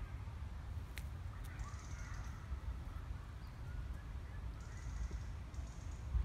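Quiet outdoor ambience: a steady low rumble with faint bird chirps in the background and a single light click about a second in.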